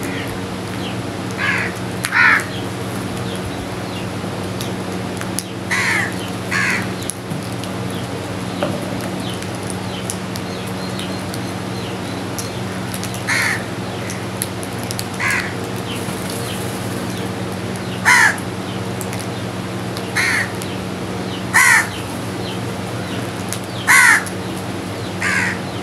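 House crows cawing, about a dozen short harsh caws spaced a few seconds apart, some in quick pairs, over a steady low hum.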